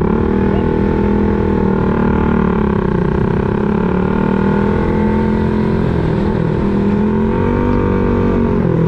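Yamaha motorcycle engine running as the bike rides along, heard from the pillion seat with a rough wind rumble on the microphone. The engine note holds steady with small rises and falls, then dips and climbs again near the end.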